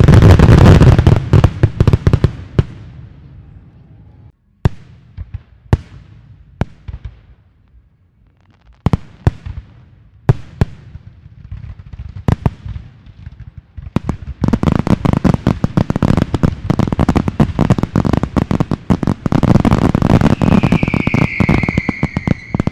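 Fireworks display going off. A heavy cluster of bangs comes at first, then scattered single reports, then a long, dense barrage of rapid bangs through the second half. A high falling tone sounds near the end.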